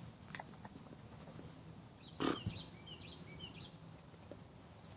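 A bird chirping in short repeated falling notes, with one short, loud, noisy burst close by about two seconds in, just before the chirps.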